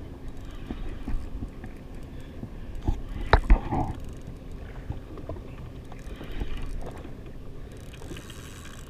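Water lapping against the hull of a jet ski sitting in chop, with wind on the microphone and a few sharp knocks a little after three seconds in.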